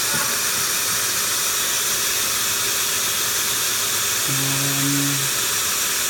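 Vacuum cleaner running steadily in blow mode, a hiss with a high whine. It is pushing air into a 1979 Toyota FJ40's exhaust system to pressurize it while an exhaust leak is hunted down.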